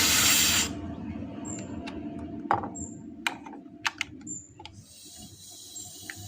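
A short burst of gas hissing from a refrigeration hose or valve fitting, cutting off abruptly under a second in. It is followed by a few sharp clicks from the fittings and tools.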